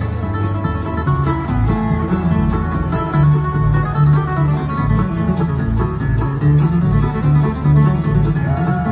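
A bluegrass band playing live on acoustic guitar, banjo, fiddle, mandolin and upright bass, with quick picked notes over a bass line that moves step by step.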